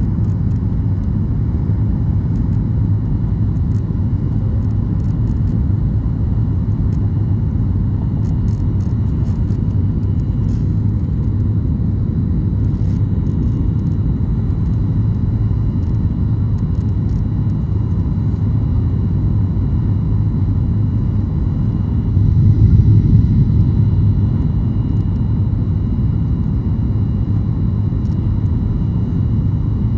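Steady low rumble of a jet airliner's engines and rushing air, heard from inside the passenger cabin during the climb after takeoff. It swells briefly about two-thirds of the way through.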